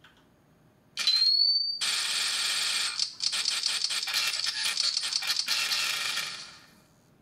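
Electronic prop sound effects through a small speaker. About a second in, a short rising high whine with a hiss. Then several seconds of rapid, irregular crackling rattle that fades out near the end.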